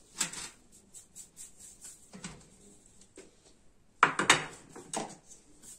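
Plates and dishes clinking and knocking as they are handled: a few scattered knocks, then a quick run of sharp clinks about four seconds in, and one more near the end.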